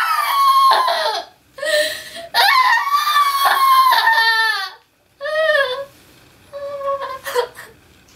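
A woman screaming and sobbing in acted distress: about five high, wavering cries with short gaps between them, the longest about two seconds, each trailing off with a falling pitch, the last one fainter.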